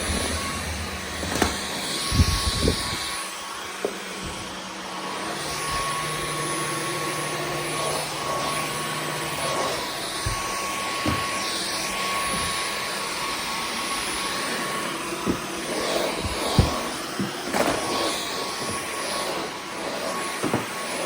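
Dyson V15 Detect Absolute cordless stick vacuum running steadily during vacuuming, a constant rushing with a steady whine, and occasional knocks as the head bumps along.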